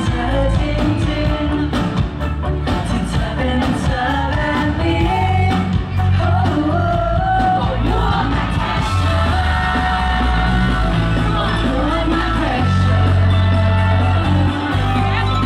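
Loud live pop music through a concert PA system, with a steady heavy bass and a singing voice. An audience yells and shouts over it.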